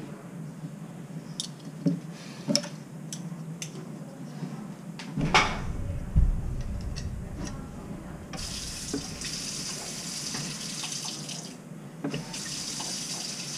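Moen single-handle kitchen faucet being tested after a cartridge replacement: a few light clicks and one louder knock as the handle and spout are worked, then water running from the spout into the sink from about eight seconds in, cut off briefly near twelve seconds and then running again.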